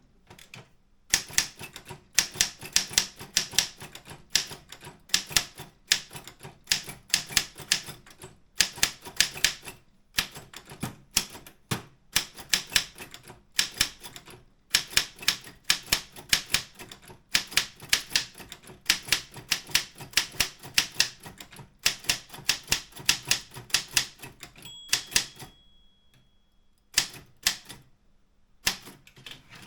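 Optima M14 typewriter being typed on: rapid runs of key strikes with short pauses between bursts. Near the end the typing stops for a couple of seconds, then a few more strokes follow.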